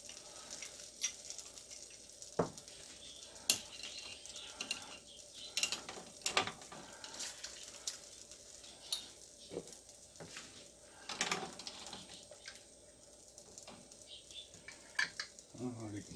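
Scattered clinks and knocks of metal tongs lifting glass canning jars and their lids out of a pot of hot water and setting them down, over a faint steady sizzle of simmering.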